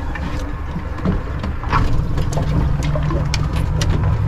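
Boat engine running under way, a steady low drone that gets louder about two seconds in, with wind and water noise and scattered short knocks over it.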